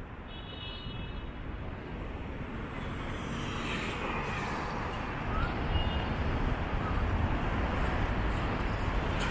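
Road traffic on a multi-lane city road: a steady rush of passing cars and tyres, slowly growing louder toward the end.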